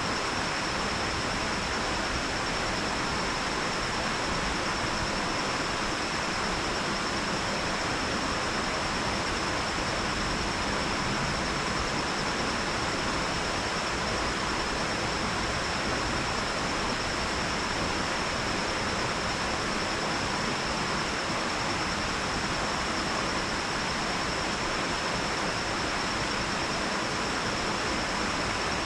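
Water pouring over a lake dam into the creek outlet: a steady, even rush of falling water, with a thin steady high-pitched tone running through it.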